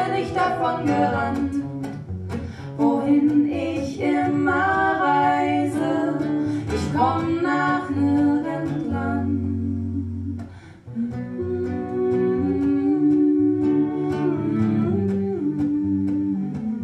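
A woman singing a slow melody over a plucked acoustic guitar. The music drops away briefly about ten seconds in, then guitar and voice carry on.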